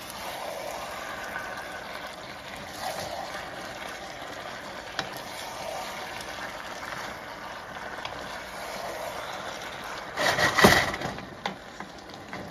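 Stir fry sizzling steadily in a pan on high heat as sliced mushrooms are dropped in by hand, with a louder burst of noise about ten seconds in, lasting about a second.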